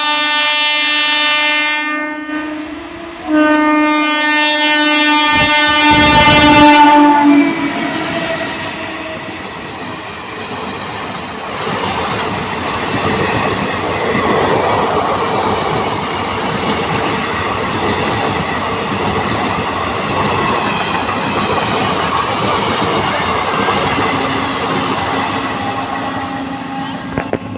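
Indian Railways EMU train with its horn sounding twice: a blast of about two seconds, then a longer, louder one of about four seconds. After that comes the steady running noise of the train on the track.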